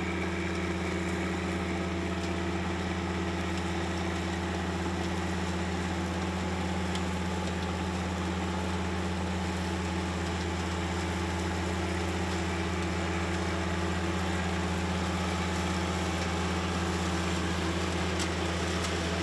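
John Deere 1025R sub-compact tractor's three-cylinder diesel engine running steadily at a constant speed, with a deep, even hum.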